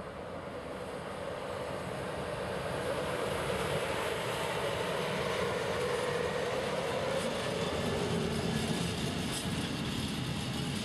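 Electric locomotive and container freight train passing close by, its wagons' wheels rolling and rumbling steadily on the rails. It grows louder over the first few seconds, then holds, with a few light clicks from the wheels later on.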